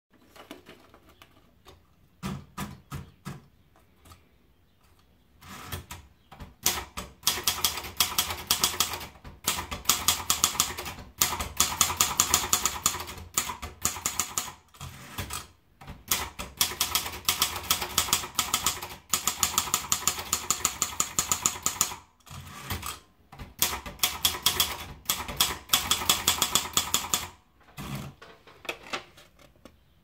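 Sperry Remington Idool portable typewriter: a few separate clacks near the start as the paper is wound in, then fast typing, runs of rapid key strikes broken by short pauses.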